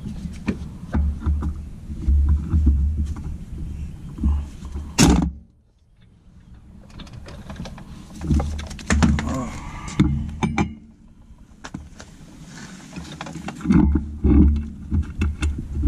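Air wrench on a red air hose running in repeated short bursts as a brake caliper bracket bolt is spun out, with a sharp metal clank about five seconds in.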